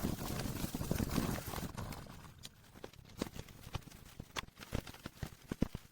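A toothbrush scrubbing the plastic cover of a keyboard case, scratchy for about the first two seconds, then dying down into scattered light clicks and knocks of plastic being handled.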